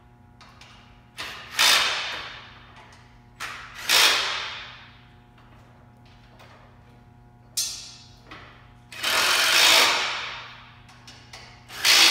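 Cordless power driver running in about five short bursts, driving fasteners into an aluminium frame. The longest burst lasts about a second and a half.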